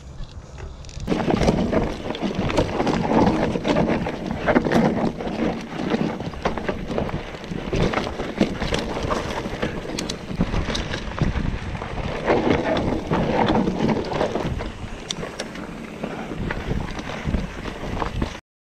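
Mountain bike riding fast down a dirt trail, heard from a handlebar-mounted camera: wind buffeting the microphone, tyres rolling over dirt, and the bike rattling and clacking over bumps. It starts about a second in and cuts off abruptly near the end.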